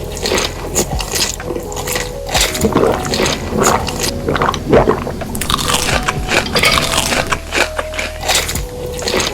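Crunchy food being bitten and chewed close to the microphone: a string of irregular crunches and wet chewing.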